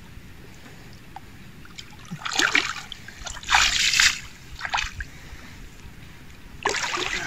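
Water splashing in four short bursts, the loudest about halfway through, as a carp is let back into the lake.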